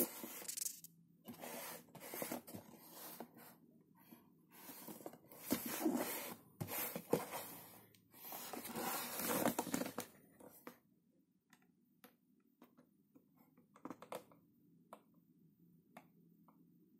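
Cardboard box handled and turned over in the hands, with rustling and scraping in irregular bursts for about ten seconds, then only a few faint clicks.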